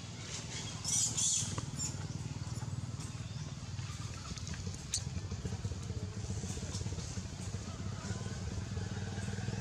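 Small motorcycle engine idling steadily nearby, with a brief high-pitched sound about a second in and a single click near the middle.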